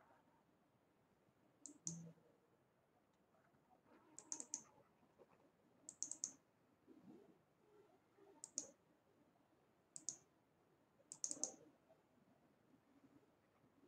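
Computer mouse button clicking: six quick faint clicks or double-clicks, spaced about two seconds apart.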